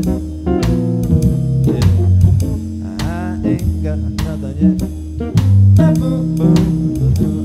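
Organ trio playing a blues-jazz instrumental passage live: organ with held low bass notes, electric guitar and a drum kit, without singing.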